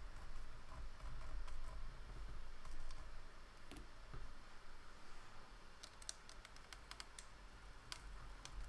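Scattered light clicks over a low handling rumble, with a quick run of clicks between about six and eight seconds in.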